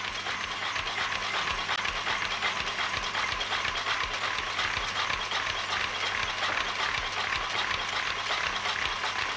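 Paper-folding machine running: a steady, rhythmic mechanical clatter with hiss, over a low steady hum.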